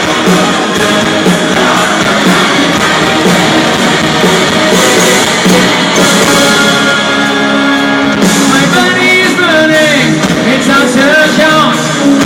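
Loud rock music: singing over electric guitar with a steady beat, the vocal line standing out more clearly in the second half.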